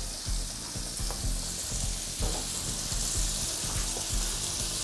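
Chicken breast and carrot sticks sizzling steadily on a hot teppanyaki griddle plate, with liquid frying fat squeezed onto the plate.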